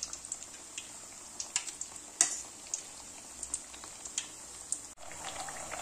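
Hot oil sizzling and bubbling steadily around urad-dal vadas (gatti garelu) deep-frying on a low flame, with scattered sharp crackles and pops.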